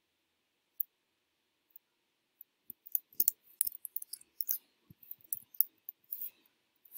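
Computer keyboard keys being typed: irregular, quick clicks that start in earnest about two and a half seconds in.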